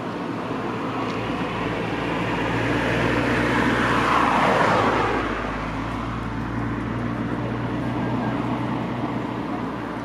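A car driving past close by: tyre and engine noise builds to a peak about halfway through, drops in pitch as it passes, and fades away.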